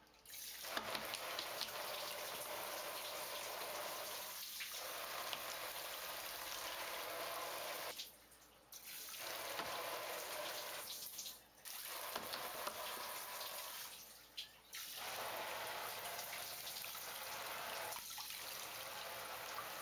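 Shower water running in a bathtub, a steady splashing hiss that drops away briefly about five times.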